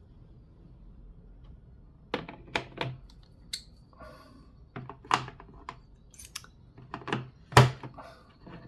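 Chrome-vanadium steel 1/4-inch sockets being handled in their hard plastic case, giving irregular sharp clicks and clacks. It starts after about two seconds of quiet, and the loudest knock comes near the end.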